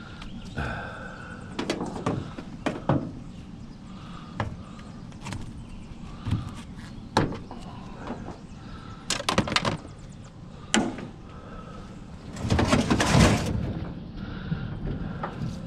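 Irregular clunks and knocks of a heavy piece of curbside scrap being handled and moved, with a longer scraping, sliding sound near the end.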